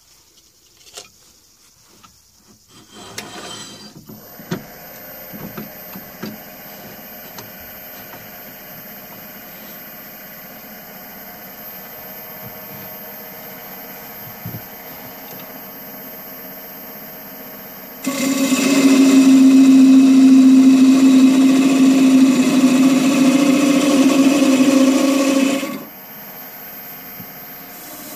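Wood lathe running steadily with a faint high whine, after a few knocks in the first seconds. For about eight seconds near the end a turning tool cuts into the spinning wood blank: a much louder, steady humming tone over shaving noise, stopping abruptly when the tool comes off.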